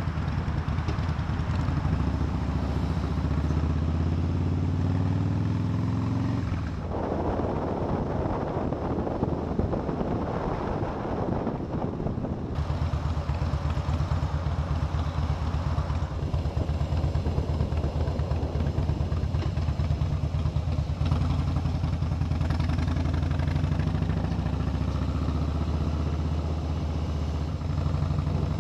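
Harley-Davidson V-twin motorcycle engine running under way, climbing in pitch as it accelerates early on and again later. For several seconds about a third of the way in, a rushing wind noise on the microphone covers the engine.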